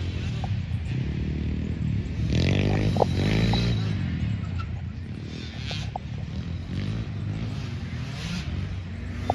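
Dirt bike engines running at racing throttle, with one bike revving up and passing close about two to three seconds in, its pitch rising then falling.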